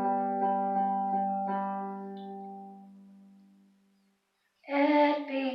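Music: a slow run of struck instrument notes, about two a second, ringing on and fading away over a few seconds. After a brief quiet gap, a singing voice comes in near the end.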